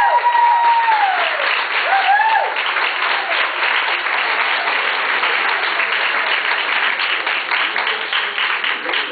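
Audience applauding, with a few high whoops in the first couple of seconds.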